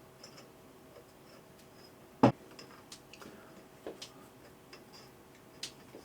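Scattered small clicks and taps of hard parts and tools being handled while working on a Xiaomi M365 electric scooter's dashboard, with one sharp click about two seconds in, over a faint steady hum.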